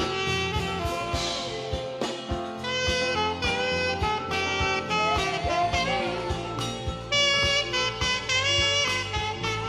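Saxophone playing a slow worship melody of held and bending notes over a backing track with drums.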